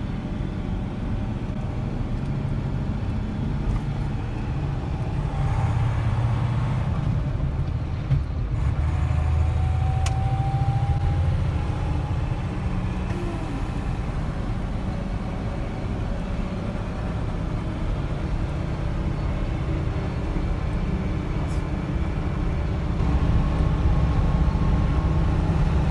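Mercedes-Benz Unimog 1300 L truck cruising at steady speed, heard from inside the cab: its six-cylinder diesel engine running under a steady rumble of drivetrain and road noise, a little louder near the end.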